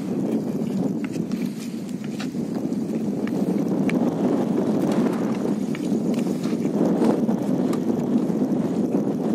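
Sandstorm wind buffeting the camera's microphone: a steady low rumble with faint scattered ticks.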